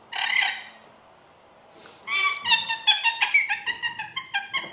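Short, high, squeaky calls from a small animal: one call near the start, then a quick run of about a dozen from about two seconds in.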